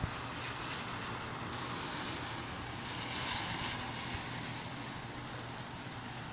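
Gusty storm wind rushing, with rain hissing, swelling to a stronger gust about three seconds in. A steady low hum runs underneath.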